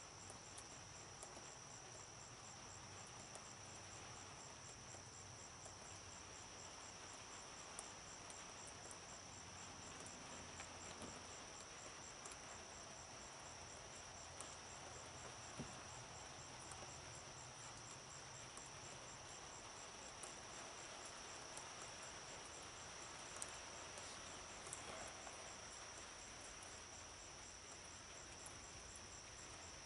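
Faint night insect chorus, crickets or similar: a continuous high trill with a fainter, evenly pulsing higher chirp over it, broken by a few faint ticks.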